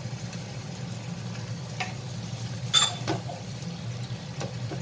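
Wooden spatula stirring chicken gizzards and onions in a nonstick frying pan while they fry, with a few sharp knocks of the spatula against the pan, the loudest a little before three seconds in, over a steady low hum.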